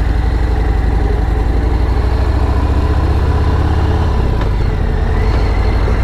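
Vehicle engine running steadily while on the move, with a pulsing low note and road noise. The low engine note changes about four seconds in.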